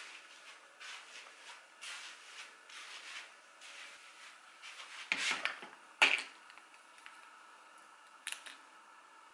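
Soft rustling and rubbing handling noises, a swish about once a second, then a louder rustle about five seconds in and two sharp clicks, about six and eight seconds in.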